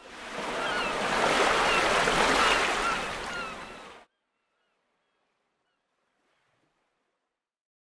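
Surf and ocean waves washing, with birds calling over it, a seaside sound effect that cuts off abruptly about four seconds in, leaving near silence.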